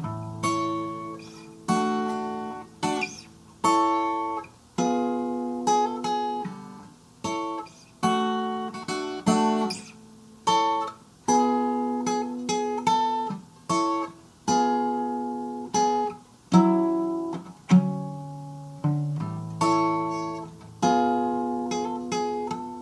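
Acoustic guitar playing alone: chords struck roughly once a second, each fading before the next.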